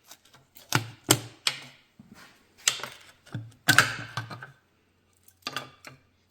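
Sharp metallic clicks and clatters of tools and engine parts being handled, in irregular bunches, loudest about a second in and again about four seconds in.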